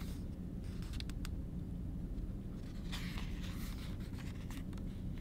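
A picture-book page being turned by hand: paper rustling and sliding for about a second and a half, starting about three seconds in, with a few faint ticks about a second in, over a low steady room hum.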